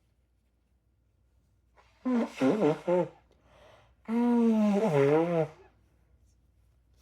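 A woman's voiced sneezing: a short, stuttering burst about two seconds in, then a long, loud, wavering one from about four seconds in, set off by a tickly, itchy nose.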